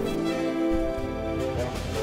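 Theme music with held notes; a deep bass part comes in under it a little under a second in.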